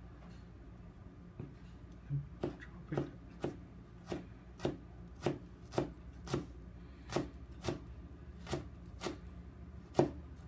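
Chef's knife chopping ginger on a plastic cutting board, mincing it into small pieces with steady strokes about two a second, starting about two seconds in.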